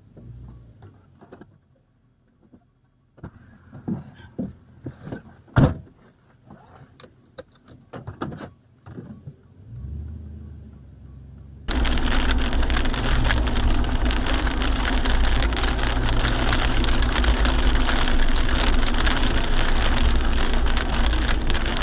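A quiet stretch with scattered clicks and knocks, then about halfway through a sudden change to loud, steady vehicle noise: road and wind noise of a car driving down a snow-covered highway.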